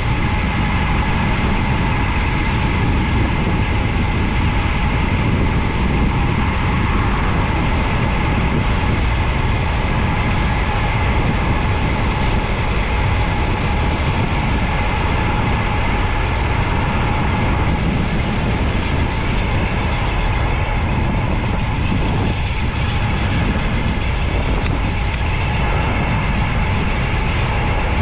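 Steady wind and road rumble of a road bike descending at speed, a loud, unbroken noise heavy in the low end.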